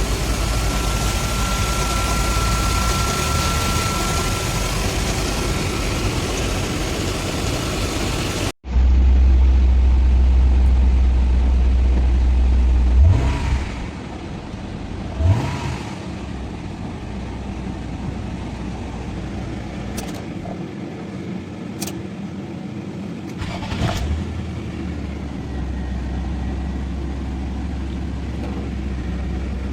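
Nissan VQ25 V6 engine running, cut off abruptly partway through, then running again with two quick revs a couple of seconds apart and a few light clicks.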